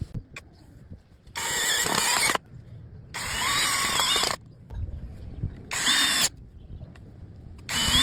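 Power drill running in four short bursts, each lasting up to about a second and a half, with pauses between them.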